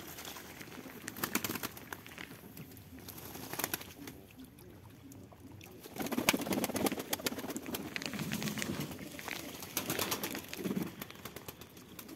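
Domestic pigeons cooing, with several low coos in the second half, mixed with short flutters and clicks as birds flap and move about on the loft landing.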